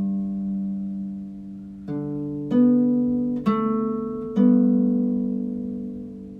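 Slow harp music: single plucked notes about a second apart, each ringing on and fading before the next.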